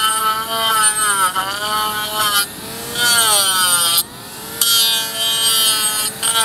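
Werkman hoof grinder, a tungsten-carbide cutting disc on a Bosch cordless mini grinder, running with a steady motor whine that sags in pitch when the disc bites into the hoof wall, over a rasping grinding of hoof horn. The grinding drops away briefly twice while the motor keeps running.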